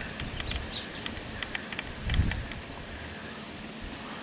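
Insects chirping steadily in a high, pulsing drone, with scattered light clicks in the first couple of seconds and a low thump about two seconds in.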